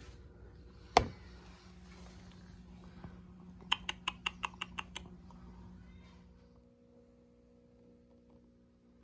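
A single sharp click about a second in, then a quick run of about eight clicks a few seconds later, over a faint steady hum.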